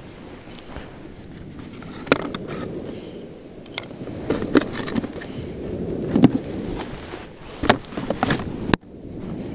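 Hard plastic clattering and knocking, about four sharp knocks, as a plastic bait box and its lid are handled and the box is set into a portable cool box. Underneath is a steady low background rush.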